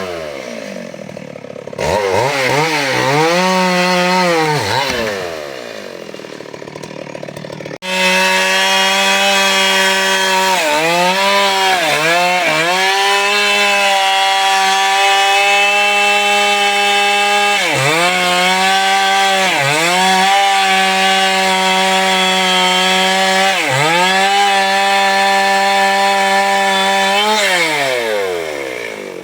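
Chainsaw revving up to full throttle and cutting wood, its pitch dipping briefly several times as the chain bogs under load. It drops back to idle about five seconds in, revs up again, and falls back to idle near the end.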